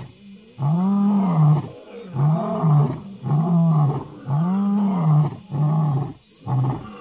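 Male African lion roaring, a territorial bout: about six deep calls in quick succession, each rising and falling in pitch and lasting under a second, with short pauses between.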